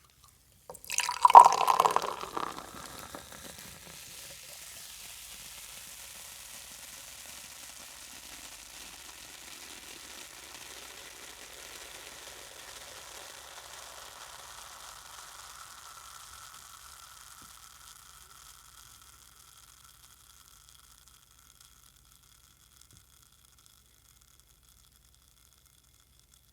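Soda poured from a can, a loud splashing pour lasting a second or two, then the carbonated drink fizzing steadily for over ten seconds and fading away.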